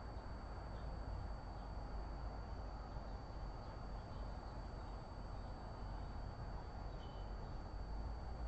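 Steady outdoor background noise: a low rumble and hiss with a thin steady high tone over it, and a few faint short chirps, the clearest one near the end.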